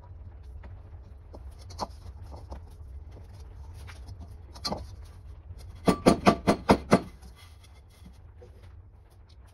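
A new wooden handle being worked onto a metal wok by hand: a few separate knocks, then a quick run of about six sharp knocks a little past the middle, over a steady low hum.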